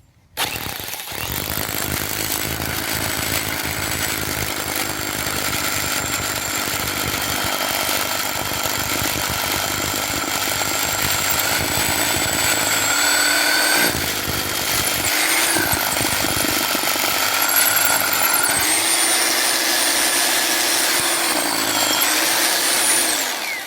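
Electric drill boring a hole into an old concrete column for reinforcing steel. It starts about half a second in, runs steadily with its motor pitch shifting a few times, and stops just before the end.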